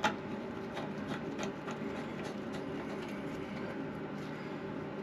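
Hands working the plastic supply fittings at a toilet and bidet attachment: a sharp click at the start, then light scattered clicks and taps over a steady low hum.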